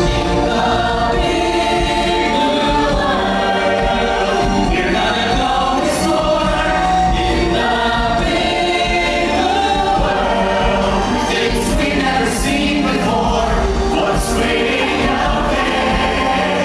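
A stage-musical cast singing together as a choir over full musical accompaniment.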